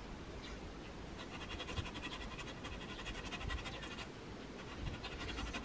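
Small knife blade sawing through nylon parachute-strap webbing: faint, rapid scratching strokes starting about a second in and lasting about three seconds.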